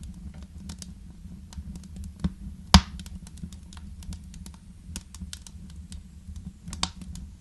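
Wood fire crackling in a fireplace: irregular snaps and pops over a steady low rumble, with one loud pop about three seconds in.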